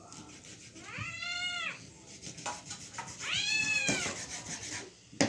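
A cat meowing twice, each meow rising then falling in pitch, a female cat begging for food. A short knock near the end.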